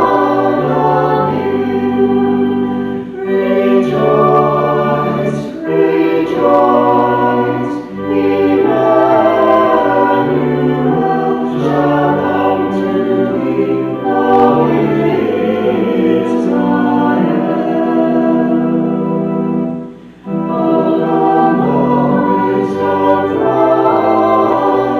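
A choir sings a hymn in phrases over held bass notes of an accompaniment, with a short breath pause about twenty seconds in.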